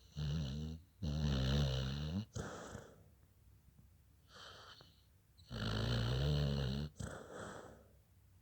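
Snoring: two snores about four and a half seconds apart, each a low buzzing breath lasting over a second with shorter, fainter breaths around it.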